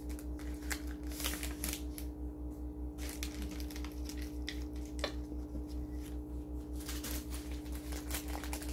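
Gloved hands crinkling and rustling a plastic-wrapped medical packet, in short scattered clicks, over the steady hum of a running machine with a fast, even low pulsing, about six beats a second.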